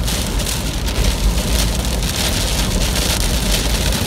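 Heavy rain hitting a car's windshield and roof, the hiss swelling and easing in gusts over a steady low rumble of wind buffeting the vehicle. This is the strong surface inflow wind near a tornado.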